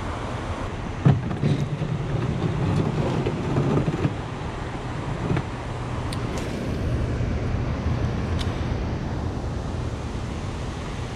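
Steady low rumble and rushing background noise throughout, with a few sharp clicks and knocks from handling a rod and reel while re-baiting and casting, about one, five and eight seconds in.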